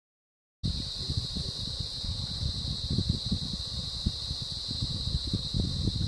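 Steady, high-pitched insect chorus that cuts in abruptly about half a second in, with an irregular low rumble and bumps underneath from the camera's microphone.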